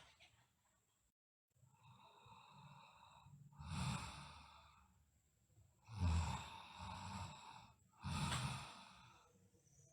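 A girl snoring in her sleep: a run of noisy, rasping breaths a second or two apart, the loudest ones about 6 and 8 seconds in.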